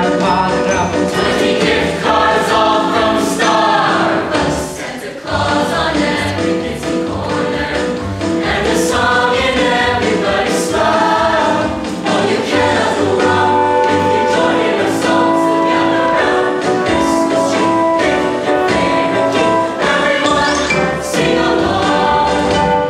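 Ensemble music with full sustained chords, choir-like in sound, over percussion hits, dipping briefly about five seconds in before resuming.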